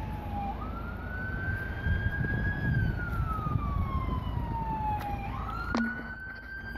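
Ambulance siren wailing slowly: it rises, holds, slides down over several seconds, then rises again near the end, over the rumble of street traffic.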